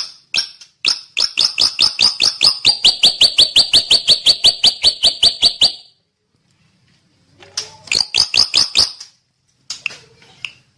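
A drongo singing: a rapid run of sharp, repeated chirps, about six a second, for some five seconds, then a shorter burst of the same notes near the end.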